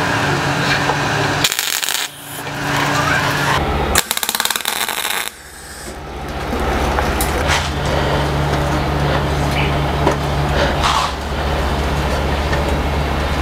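MIG welder's arc crackling and buzzing in short runs as steel hinges are tack-welded onto a steel tank. The runs start and stop abruptly several times, over a steady low hum.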